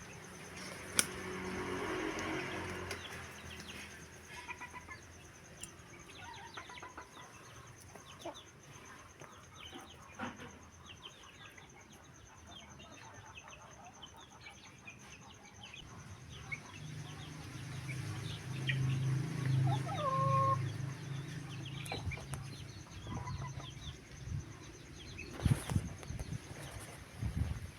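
Chickens clucking, with scattered short calls and ticks, and a louder low droning sound for a few seconds past the middle.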